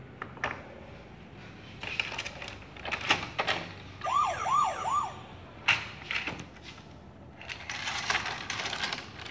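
Electronic siren of a VTech Go Go Smart Wheels toy ambulance: a short up-and-down wail repeated three times, about four seconds in. Sharp plastic clicks and knocks from the toy and its track pieces come before and after it.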